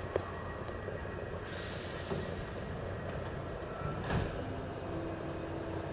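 Train at a station platform: a steady low rumble, with a brief hiss about a second and a half in and a knock around four seconds in.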